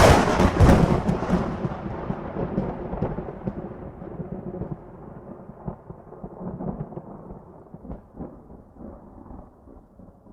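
A thunderclap: a sudden sharp crack out of silence that runs straight into a long rolling rumble, fading unevenly over about ten seconds with a few swells along the way.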